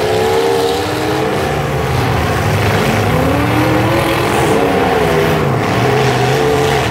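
Engines of several full-size demolition derby cars running and revving together, their pitches rising and falling as the cars accelerate and maneuver.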